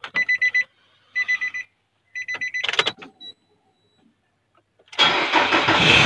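Intro sound effects: three short bursts of rapid electronic beeping about a second apart, then a click. About five seconds in, a car engine starts up loudly.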